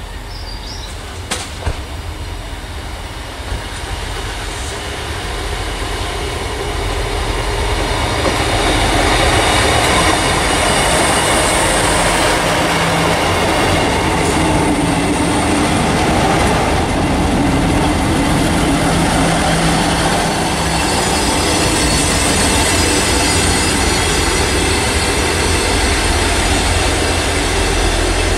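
A GWR Class 158 diesel multiple unit passes close by, its diesel engines droning and its wheels clattering on the rails. The sound grows over the first several seconds and then holds steady.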